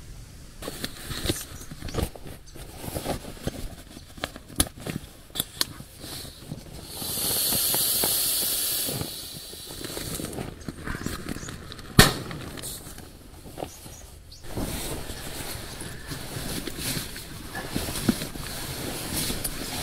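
Rustling and crinkling of a sleeping bag and nylon gear being handled and packed inside a small single-wall tent, with many scattered clicks and one sharp knock about 12 seconds in. A steady high hiss lasts about two seconds near the middle.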